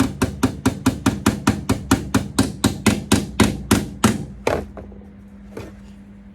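Hammer rapidly tapping a tack-welded steel repair panel on a classic VW Caddy body, about five blows a second, to beat it flush. The blows stop about four and a half seconds in, with a single blow a second later.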